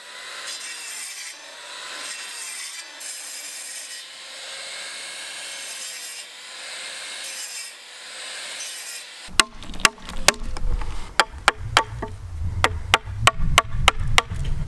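A saw cutting into a wooden beam at a bevel: a steady rasping noise with a faint wavering whine. From about nine seconds in, a quick series of sharp knocks takes over.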